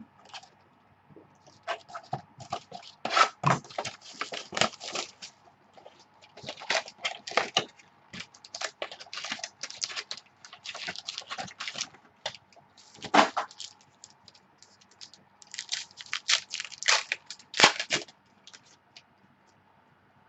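Baseball cards and their plastic packaging being handled: irregular crinkling and crackling in bursts, with a few sharper snaps.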